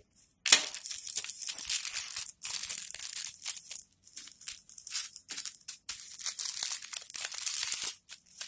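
Small plastic bags of diamond-painting drills crinkling and rustling as they are handled, starting about half a second in and going on in stretches with short pauses.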